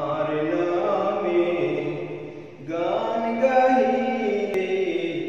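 A man singing a Bengali Islamic song in slow, drawn-out phrases with sliding notes: two long phrases with a short breath between them.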